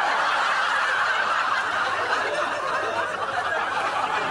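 Studio audience laughing, many voices together at a steady level.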